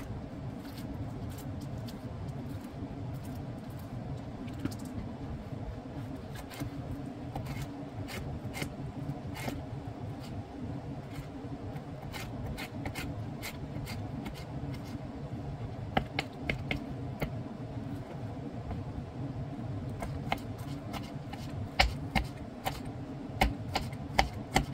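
Kitchen knife slicing and dicing an orange bell pepper on a bamboo cutting board: a run of irregular sharp taps of the blade on the board, louder and more frequent near the end, over a steady low hum.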